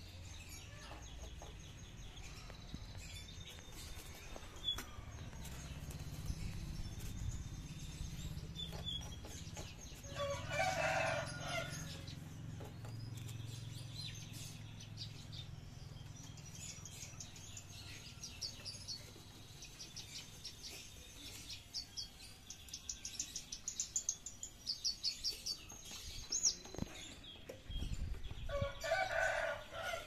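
A caged Javan bush lark sings in quick runs of high repeated notes through the second half. A rooster crows twice, about ten seconds in and again near the end, and these crows are the loudest sounds.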